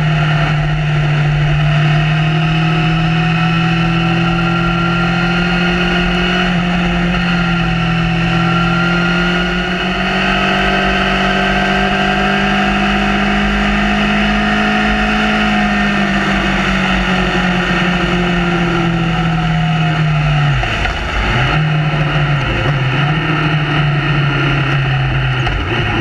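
Honda CB1000R's inline-four engine running at a steady cruise, heard onboard with wind rush on the microphone; its note rises slowly and falls back in the middle, then dips briefly a few times near the end.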